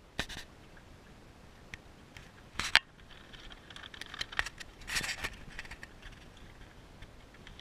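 Water slapping and splashing against the hull of a small sailing dinghy under way, with a few sharp knocks and clicks from the boat's fittings and rigging, the loudest about two and a half seconds in.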